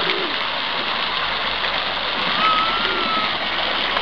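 Fountain jets splashing steadily into a stone basin, a dense, even rush of falling water.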